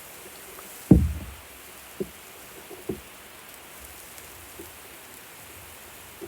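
A heavy low thump about a second in, then two lighter knocks, over a steady hiss.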